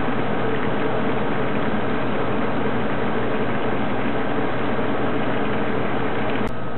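Shrimp, clams and mussels cooking down in tomato-wine sauce in a pan on a restaurant stove: a steady hiss over a constant mechanical hum that breaks off abruptly near the end.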